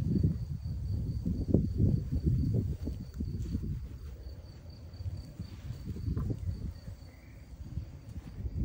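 Uneven low rumble of wind buffeting the microphone, loudest in the first few seconds and again near the end, with a faint, steady, high-pitched trill running underneath.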